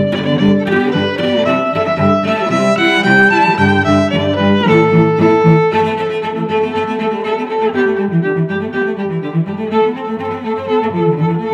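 Background music, led by bowed strings, playing a melody in sustained notes.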